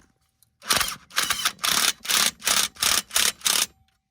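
Impact gun hammering in about eight short, even bursts, one every 0.4 s or so, while it tightens the top nut of a new front anti-roll bar drop link.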